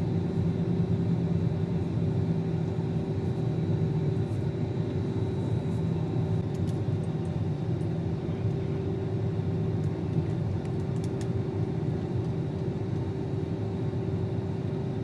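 An engine running steadily, a low, even drone that does not change, with a few faint clicks about six and eleven seconds in.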